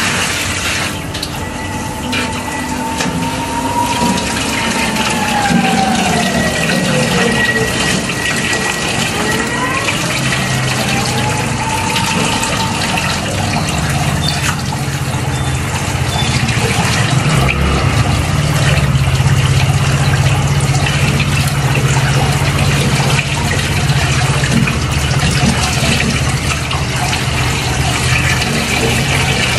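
Water rushing steadily from a handheld shower head as a dog is rinsed in a concrete sink. A faint tone slowly falls and rises in the first half, and a low steady hum joins about halfway through.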